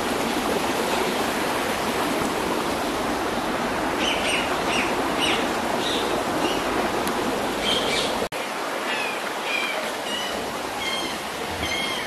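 Steady rush of running water, with small birds chirping in short repeated calls from about four seconds in. The sound drops out for an instant a little after eight seconds.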